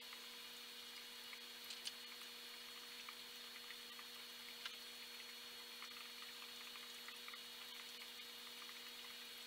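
Faint steady hum of a running aquarium's equipment with a soft hiss of bubbling water, as streams of air bubbles rise through the tank. A few tiny ticks sound through it, the sharpest about two seconds in.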